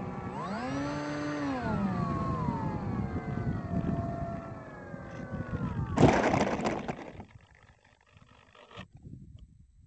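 Electric motor and propeller of a HobbyKing Bix3 RC plane whining in several tones: the pitch rises briefly about half a second in, then winds slowly down as the plane comes in to land. About six seconds in there is a loud rush of scraping as the plane touches down on grass and slides to a stop within about a second, and then it is near silent.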